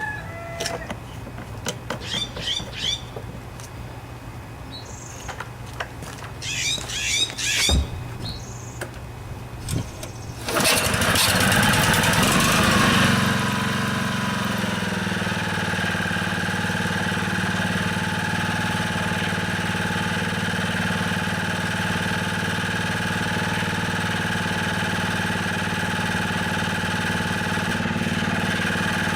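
Honda HR215 lawnmower's single-cylinder engine running, first low and quiet, then about ten seconds in jumping sharply to a much louder, higher speed that settles by about fourteen seconds and then holds perfectly steady without surging, now that its clogged carburetor slow jet has been cleaned.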